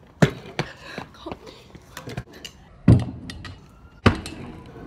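Stunt scooter on asphalt: sharp knocks and thuds of the deck and wheels hitting the road as tricks are landed, the heaviest about three seconds in and another strong one about a second later.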